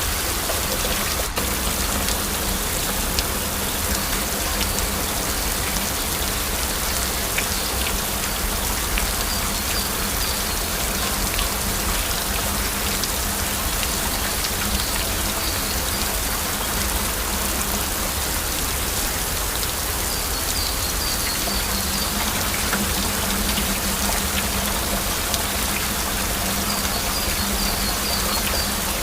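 Steady heavy rain: a constant even hiss with scattered individual drop hits.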